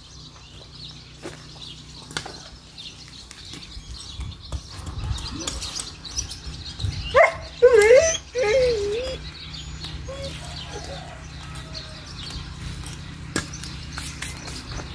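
An animal's wavering call of about two seconds, the loudest sound, about halfway through. Faint scattered clicks and scrapes lie underneath.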